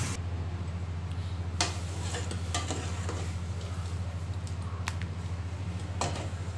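Metal ladle scooping soup in an aluminium pot and tipping it into a bowl, with a few sharp clinks of metal against the pot and bowl, over a steady low hum.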